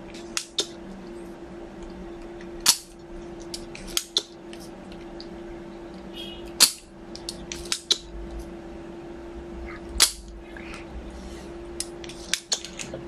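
Spring-loaded desoldering pump (solder sucker) firing with loud sharp snaps about every three to four seconds, clearing solder from board joints. Smaller clicks of the plunger being re-cocked and the tool knocking on the chassis come in between, over a steady low hum.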